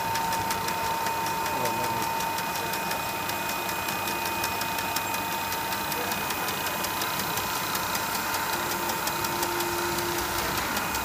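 Chocolate enrobing machine running: a steady whir of motors and fans with a fast, even ticking and a constant high hum.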